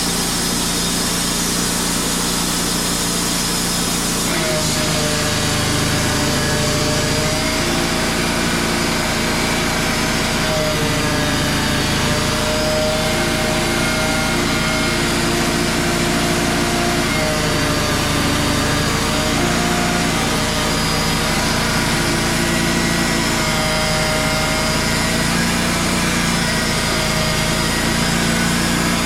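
Wood-Mizer portable band sawmill running, its engine droning steadily with a wavering whine above it; the sound shifts about four seconds in.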